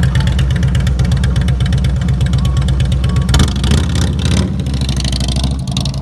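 Harley-Davidson touring motorcycle's V-twin engine idling with a fast, pulsing beat, then revving louder a little past halfway as the bike pulls away.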